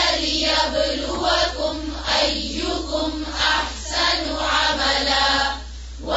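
Vocal outro music: voices chanting in a choir-like blend, with sustained, shifting notes and a brief dip in level near the end.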